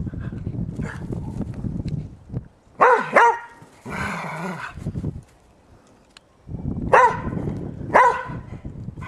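Springer spaniel barking: two quick barks about three seconds in, then single barks near seven and eight seconds, with a low rustling between them.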